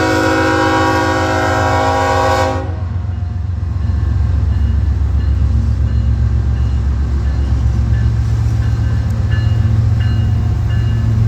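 A diesel freight locomotive's multi-chime air horn sounds a loud chord and cuts off sharply about two and a half seconds in. It is followed by the steady low rumble of the BNSF train's diesel locomotives passing.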